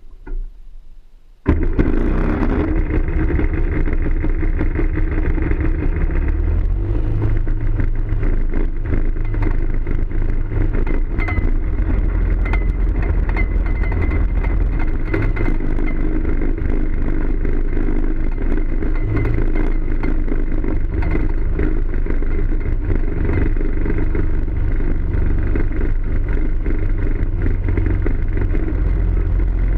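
Ultralight aircraft's engine starting suddenly about a second and a half in, then running steadily and loudly with the propeller turning as the plane taxis, its pitch shifting slightly a few times.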